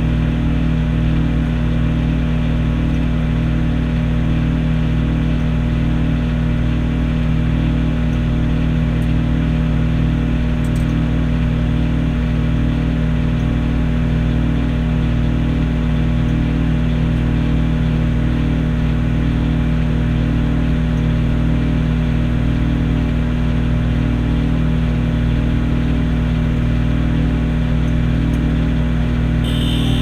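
Microwave oven running at full power: a steady, loud hum and whir from its transformer, magnetron and fan, with a faint regular pulsing underneath.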